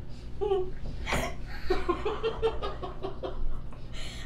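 A woman laughing hard in a quick run of short "ha-ha" bursts, with a brief knock about a second in.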